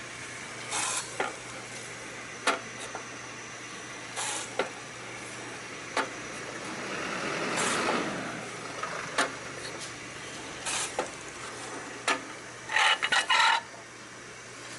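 Hakura Seiki HARD-70 single-slice bread slicer running with a steady low hum, broken every second or two by short rasping strokes and sharp clicks, with a longer swell in the middle and a quick run of loud strokes near the end.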